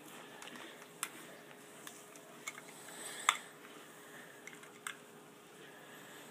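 Small screwdriver clicking and scraping on the screw and plastic body of a battery-operated Thomas the Tank Engine toy as the battery-compartment screw is worked loose: a handful of light clicks, the sharpest about three seconds in.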